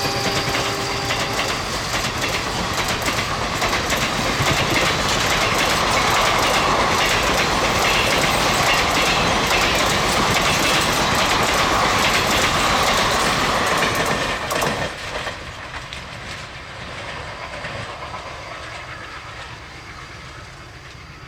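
Indian express train running past at speed, its coach wheels clattering over the rail joints in a loud, continuous rush, while the tail of the diesel locomotive's horn dies away in the first second or so. The noise drops off sharply about 15 seconds in as the last coach goes by, leaving a fading rumble.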